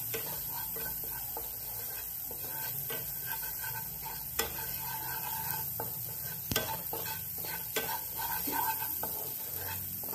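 Ginger paste and ground spices sizzling in hot oil in a kadai, stirred and scraped around with a wooden spatula, which gives scattered clicks against the pan, the sharpest about four and a half and six and a half seconds in.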